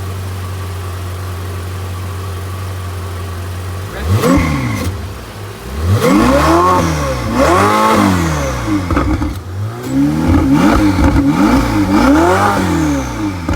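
Ferrari 488 GTB's twin-turbo V8 idling steadily, then revved in several quick throttle blips from about four seconds in, each rising and falling back.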